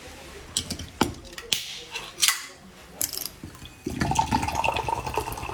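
Several sharp clicks and snaps of a juice bottle being handled and opened. Then, from about four seconds in, a steady gurgling run of orange juice being drunk loudly.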